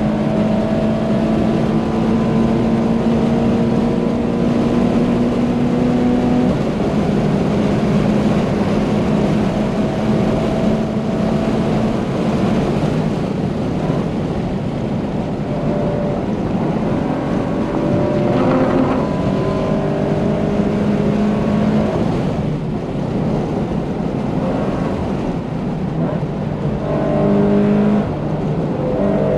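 Subaru BRZ's naturally aspirated flat-four engine, with a catless exhaust and Tomei header, run hard at high rpm and heard from inside the cabin over heavy wind and tyre noise. Its pitch climbs slowly and drops away several times.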